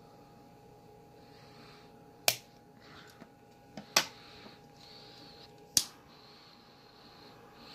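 Butane torch lighter's igniter clicking three times, a little under two seconds apart, as it is struck to light.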